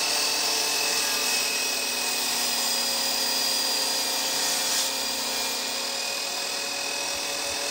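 Ridgid miter saw running with a steady motor whine as its blade cuts through a butcher block slab.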